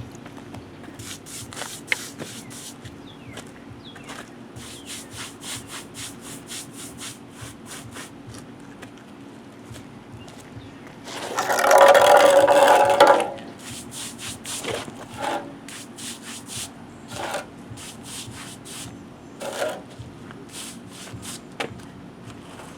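A trowel scraping and rubbing wet cement mix over a concrete surface in many short, repeated strokes, feathering the edges of a thin bonding layer. About halfway through, a louder sound with a ringing tone lasts about two seconds.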